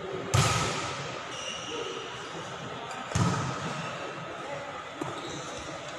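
A volleyball struck hard three times during a rally, each hit a sharp smack that echoes around an indoor sports hall: a loud hit just after the start, another about three seconds in, and a lighter touch about five seconds in.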